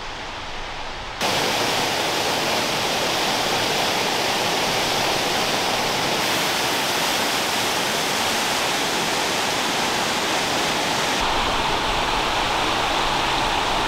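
Steady rushing of falling water from a fast stream and waterfall. It jumps abruptly louder about a second in, and its tone shifts twice more later on.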